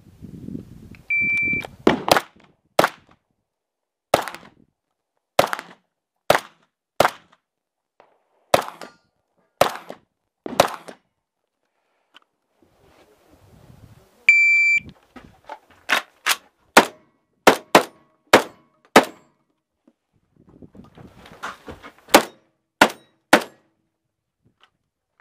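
Shot-timer start beep, then a Vepr-12 12-gauge semi-automatic shotgun firing a string of shots about a second apart. Partway through, a second timer beep starts another string that is faster at first. Rustling from the shooter's movement fills the pauses.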